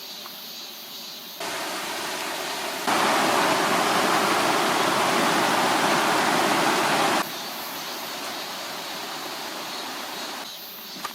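Rushing water of a rocky mountain stream and waterfall, a steady even noise that jumps abruptly louder twice, loudest through the middle, then drops back in two sudden steps.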